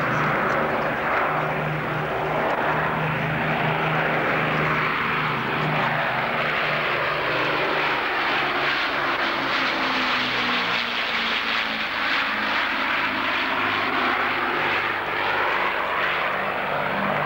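Avro Lancaster bomber's four Rolls-Royce Merlin V12 piston engines running steadily as it flies past overhead.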